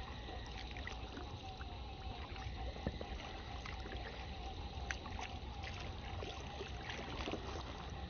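Water dripping and lapping around a kayak on a still pond, with scattered small splashes and light knocks, the sharpest about three seconds in. A steady warbling tone runs in the background.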